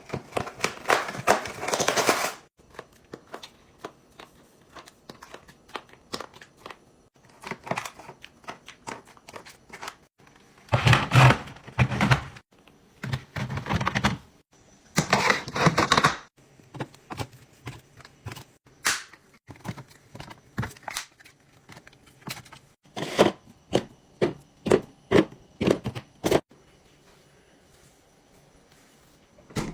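Household items being handled during fridge restocking: several bursts of rustling packaging, and many light clicks and knocks of containers and lids being set down, with a quick run of clicks about three-quarters of the way through.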